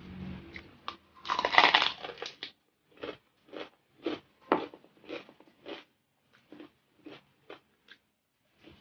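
A loud crunching bite into crispy deep-fried pork, about a second in, then steady crunchy chewing at about two chews a second, growing fainter.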